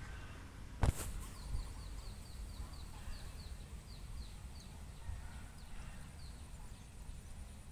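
A bird calling in a quick run of short, falling chirps, about four a second, for a few seconds, over a steady low rumble. A single sharp click comes about a second in.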